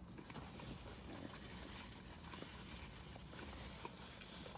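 Faint chewing and wet mouth sounds of a person eating a breakfast sandwich, with a few small clicks, over a low steady hum.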